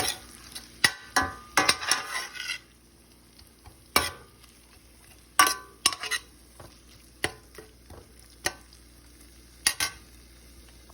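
A cooking utensil stirring a sauté of tomato and shrimp paste in a pan, clinking and scraping against the pan: rapid strokes for the first couple of seconds, then single clinks about once a second, over a faint sizzle.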